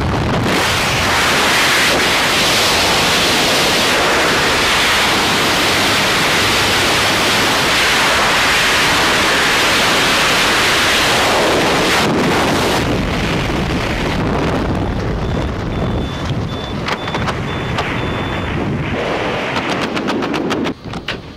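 Loud freefall wind rushing over the camera microphone during a tandem skydive. It eases about twelve seconds in as the parachute opens, leaving lighter, gusty wind under canopy.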